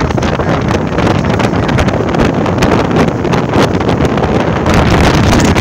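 Strong Nord-Ost (bora) wind buffeting the microphone: a loud, continuous rumble with dense rapid crackles, picking up a little about four and a half seconds in.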